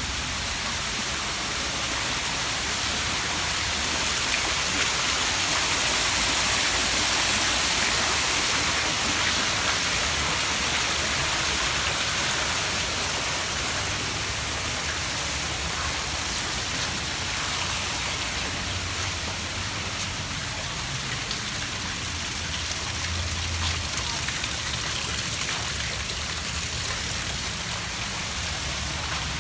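Steady rushing hiss of running water, swelling a little a few seconds in and easing back.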